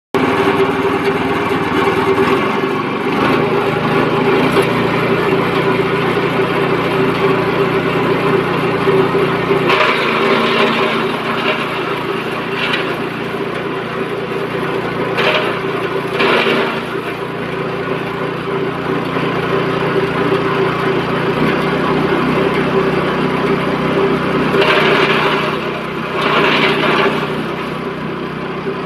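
Engine-driven grass chopper running steadily, its engine note shifting slightly a couple of times, with several short louder rasping bursts around the middle and near the end.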